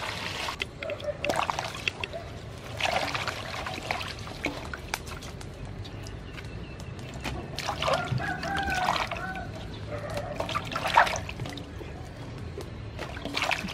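Water poured from a plastic bowl into a large aluminium basin, then sloshing and splashing as hands wash lemongrass stalks and red chillies in it and lift them out dripping. A rooster crows about eight seconds in.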